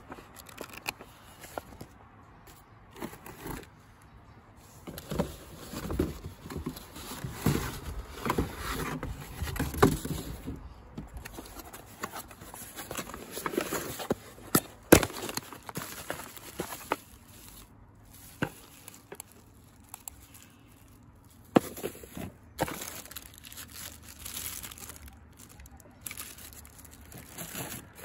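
Cardboard boxes and a paper instruction manual being handled and moved: rustling and scraping with irregular taps and knocks, the sharpest one about halfway through.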